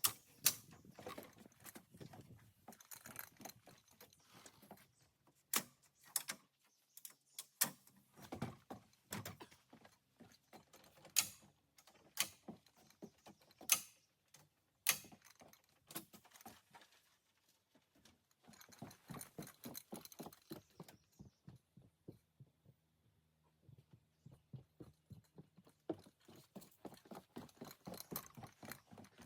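Irregular clicking, tapping and knocking of small hard objects being handled, with a handful of sharper knocks standing out and a quieter stretch about three-quarters of the way through.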